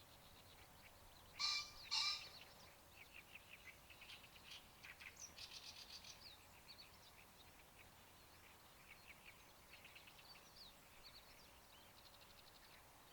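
Birds calling: two loud, sharp calls about a second and a half and two seconds in, followed by rapid, scratchy chattering song that runs on and off through the rest.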